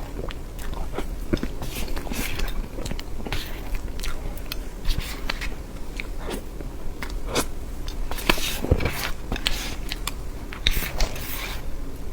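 Close-miked eating of soft cream cake: irregular wet mouth clicks, bites and chewing, with a few louder bites.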